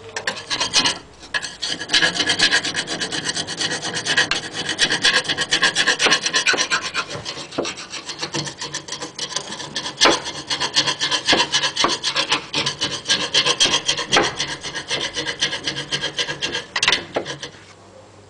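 Rapid back-and-forth scraping of metal by hand inside the empty bushing eye of a Mercedes Vito subframe, cleaning the bore before new bushings are pressed in. The strokes run on with a short break about a second in and stop about a second before the end.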